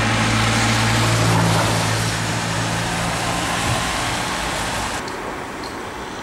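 Outdoor traffic noise: an engine's steady low hum over a loud, even rushing noise, the hum fading out three to four seconds in.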